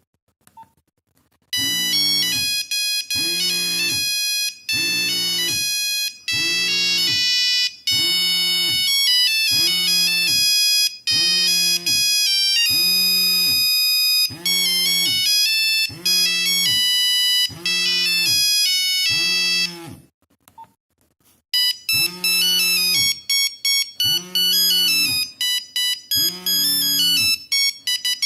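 Nokia 3410 ringtones played through the phone's small speaker: a monophonic melody of bright, buzzy beeping notes, with a low pulse repeating about once a second beneath it. The tune stops about twenty seconds in, and after a short silence another tune starts.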